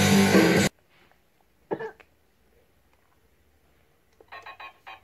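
Guitar music cuts off suddenly under a second in, followed by one short cough-like sound. Near the end, a finger presses the sound buttons of a Road Rippers toy tow truck, and about five quick short electronic sounds come from the toy's small speaker.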